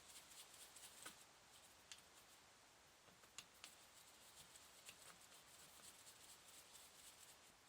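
Near silence with a few faint, sharp clicks: a screwdriver working loose the screws holding the dynamo's end housing.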